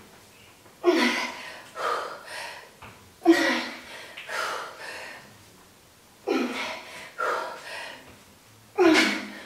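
A woman breathing hard from exertion: about seven sharp, forceful breaths, mostly in pairs every two to three seconds, in time with her weighted side-lunge and curtsy-lunge reps.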